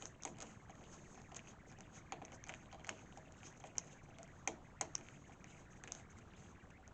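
Hand screwdriver driving a screw into a metal door strike plate: faint, irregular clicks and small scrapes as the screw is turned in, with a few sharper ticks about halfway through.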